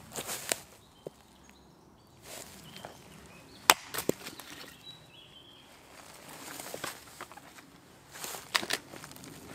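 Hatchet splitting a small round of wood on a tree-stump chopping block: one sharp chop about three and a half seconds in as the wood splits apart, a second knock just after, and two more quick chops near the end.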